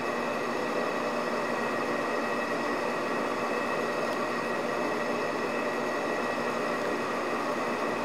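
Steady machine hum and hiss with several fixed tones held at one level throughout, without change.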